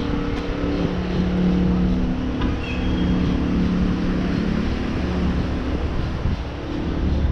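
Street traffic: motor vehicle engines running with a steady low hum.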